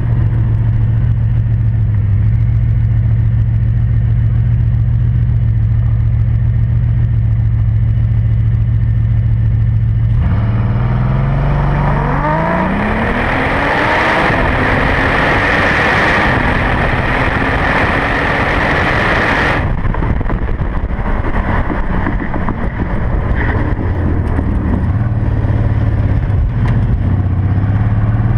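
Bugatti Veyron 16.4 Grand Sport's quad-turbo W16 heard at the exhaust tip: idling steadily for about ten seconds, then rising in pitch as it pulls away, with stepped climbs through the gears under a loud rushing hiss that cuts off suddenly about twenty seconds in. After that it runs at a steady lower pitch and rises again near the end.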